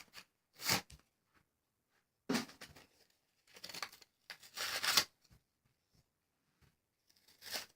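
Plastic packaging crinkling and being pulled at by hand in several short, irregular bursts, as someone tries to tear open a fidget spinner's package.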